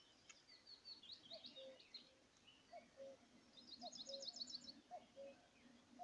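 Faint songbirds singing: high chirps, then a quick trill of about eight notes near the middle. Under them, a lower two-note call, the second note lower and held longer, repeats about once a second.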